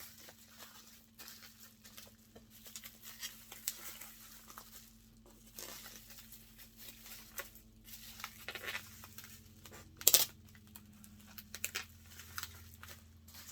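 Bubble wrap being handled and wrapped around a small object, crinkling and rustling irregularly, with one brief louder rip about ten seconds in.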